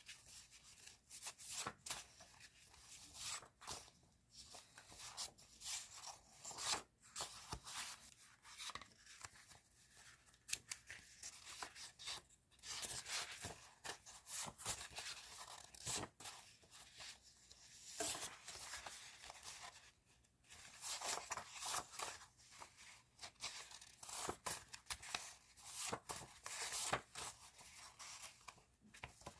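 Paper and plastic stationery packaging being handled: irregular rustling and crinkling, with brief tearing sounds, as sticker sheets and sleeves are unpacked and sorted.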